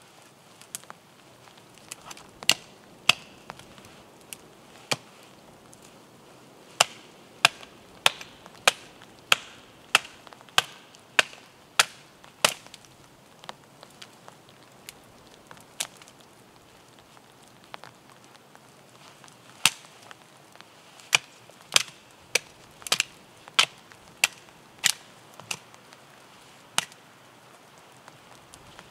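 Small axe chopping at the branches of a fallen tree: sharp single strikes in irregular runs, at their fastest about three strokes every two seconds, with pauses between runs.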